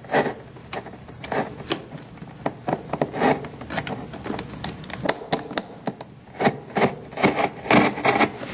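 Utility knife blade cutting through corrugated cardboard along a curved line, an irregular run of short clicks and scrapes as it is drawn through in short strokes.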